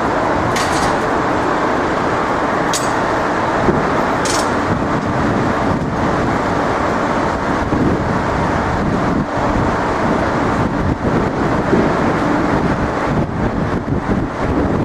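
Steady city street traffic noise, a continuous hum of passing vehicles, with a few brief sharp sounds in the first five seconds.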